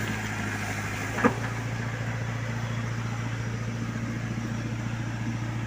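Backhoe's diesel engine running steadily at a low, even hum while its bucket digs into the soil, with one brief knock about a second in.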